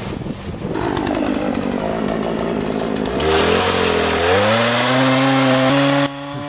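Two-stroke chainsaw running under load. A rough, noisy stretch is followed about three seconds in by a clear engine note that rises in pitch and holds at high revs, then drops off sharply near the end.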